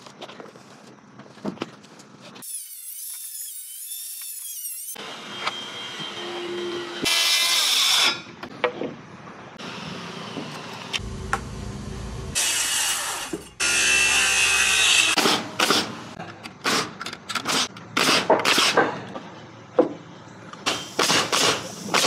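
Power saw cutting lumber in several separate runs, one of them with a steady whine, then a pneumatic coil framing nailer firing a quick series of sharp shots, several a second.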